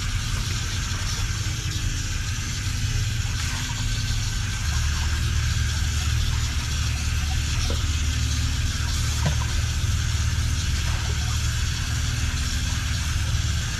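Water running from an outdoor tap and splashing into a clay bowl, with a few faint clinks, over a steady low rumble that grows louder about four and a half seconds in.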